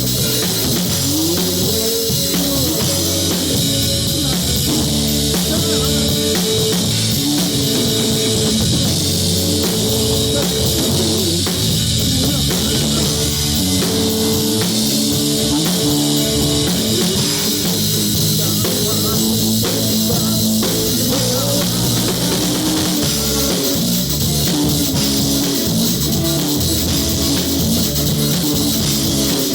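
Loud rock music with a drum kit and guitar playing steadily.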